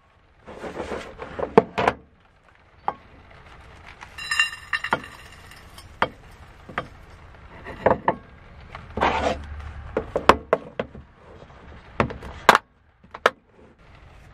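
Muesli poured from a plastic tub into an enamel bowl, heard as a dry rattling pour twice. Around it are many sharp clicks and knocks of the tub and other kitchen things being handled on a wooden counter.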